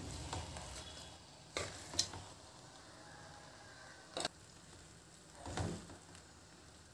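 A metal spoon scrapes and knocks against a steel pan of chicken biryani rice as it is stirred: four separate strokes over a faint hiss of frying.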